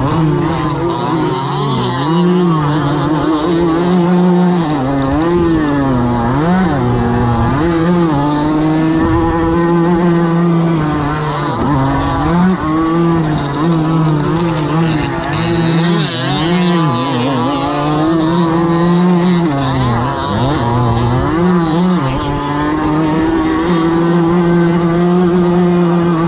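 A racing moped's small two-stroke engine heard from on board, revving hard under load. Its pitch climbs and drops again and again as it accelerates, shifts and eases off for bends. Wind rumbles on the microphone.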